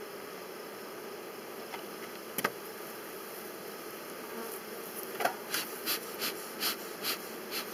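Honeybees buzzing steadily over an open hive, with a single sharp knock about two and a half seconds in. From about five seconds in, seven quick hissing puffs of a bee smoker's bellows, roughly two or three a second.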